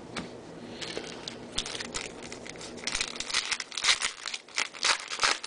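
Foil wrapper of a baseball card pack crinkling and crackling as it is torn open by hand, the rustling growing denser and louder from about three seconds in.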